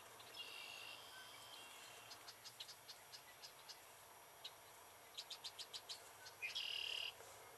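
Faint marsh wildlife calls: scattered sharp chirps, a quick run of chirps about eight a second just past the middle, and two buzzy calls, one soon after the start and a louder one near the end.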